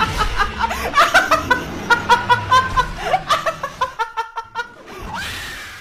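A young woman laughing hard, in a fast run of loud, high-pitched cackles several times a second, ending in a longer breathy sound near the end.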